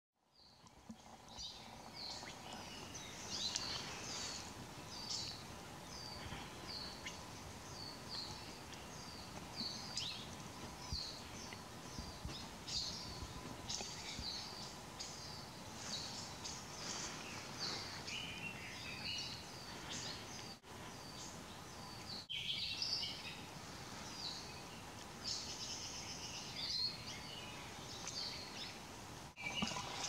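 Hawaiian forest songbirds calling: a dense, continuous run of short high chirps and brief trills, several birds overlapping.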